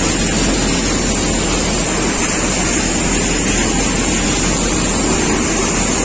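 Tractor-driven paddy thresher running steadily at full speed, a loud, even mechanical noise with a constant high whine over it.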